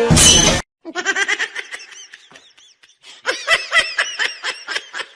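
A short, loud burst of noise that cuts off suddenly, then a person laughing in quick, high-pitched bursts. The laughter comes in two bouts, and the second, about three seconds in, is louder.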